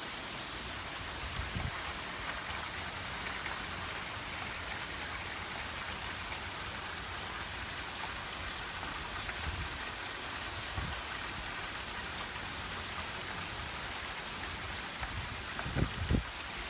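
Steady rain falling, an even hiss throughout, with a few short low thumps, the loudest a cluster near the end.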